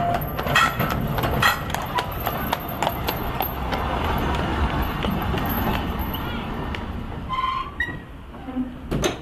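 A heavy draught horse's hooves clip-clop on the road as it hauls a double-decker horse tram past close by, with the steady rumble of the tram's wheels on the rails. A sharp click comes near the end.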